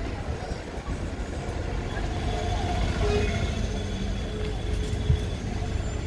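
Low, steady rumble of a car and the street traffic around it, heard through an open car window. A single short knock comes about five seconds in.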